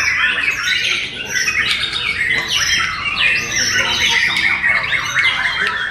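Caged white-rumped shamas (murai batu) singing, several at once, in a dense, unbroken stream of quick whistled phrases and fast pitch glides.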